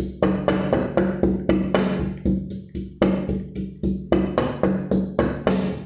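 Wooden pestle pounding in a clay mortar, crushing chili, garlic and sugar: rhythmic knocks about four a second, with a short break about two and a half seconds in.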